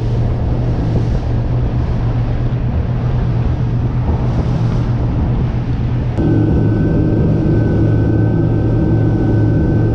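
A bank of outboard motors on a center-console boat running at speed: a loud, steady low engine drone with rushing wind and water. About six seconds in the sound shifts and a thin, high steady tone joins the drone.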